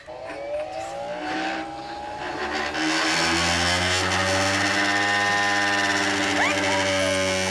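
Motor-driven spinning wheel of a tennis-ball launching machine winding up: a whine that rises in pitch over about three seconds, then settles into a steady loud hum.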